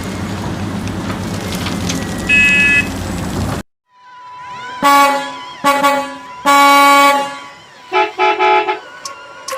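Truck horn honking in a series of blasts: three at one pitch, the third the longest, then two higher-pitched toots near the end. Music plays before the horn starts.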